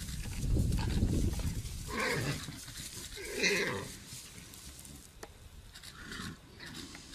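A warthog squealing in distress as a lion bites its head: two loud squeals about two and three and a half seconds in, and a weaker cry near the end.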